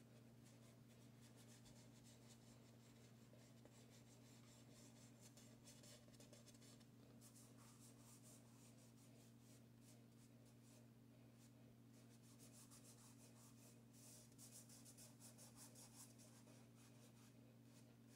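Faint scratching and rubbing of a soft chalk pastel stick and fingertips on paper, coloring in and blending pastel in repeated strokes, a little stronger near the end, over a steady low hum.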